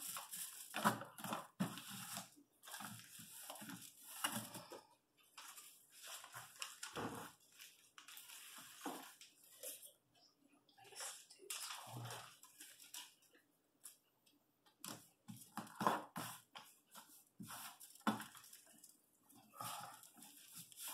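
Aluminium foil tape being worked: the paper backing liner peeled and crinkled, tape pulled off the roll and rubbed down onto the edges of a cardboard box, in a string of short, irregular crinkling and scraping rustles.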